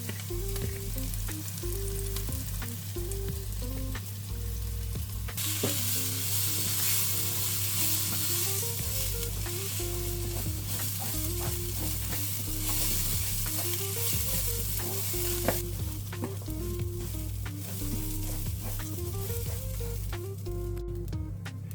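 Food sizzling in a hot pan while being stirred, with scattered clicks of the utensil; the sizzle grows louder about five seconds in and eases back about fifteen seconds in.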